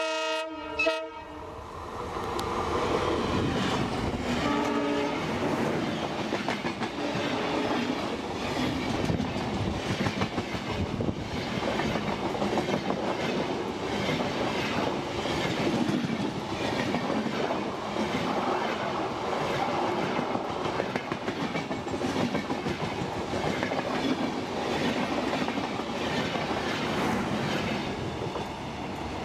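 WDP4D diesel locomotive's multi-tone horn sounding in short blasts at the start and again about four seconds in. Then a long Duronto Express passenger train passes close by: a steady rumble with the repeated clickety-clack of coach wheels over rail joints.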